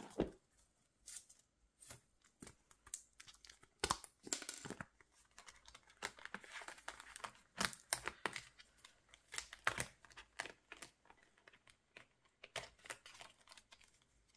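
Hands handling paper cards and plastic sleeves in a ring binder: crinkling and rustling, broken by scattered sharp clicks and taps.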